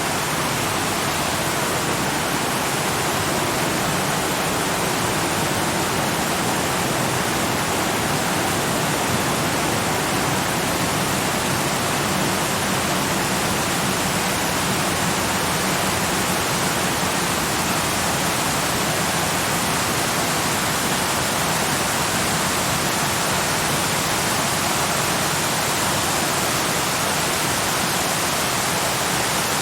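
Waterfall: a steady, dense rush of falling water, fading in at the very start and then holding even throughout.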